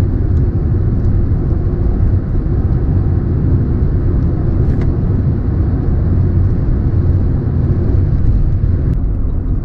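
Toyota AE101 Corolla GT's 4A-GE 20-valve four-cylinder engine and tyre noise heard from inside the cabin while cruising at a steady speed: a steady low rumble.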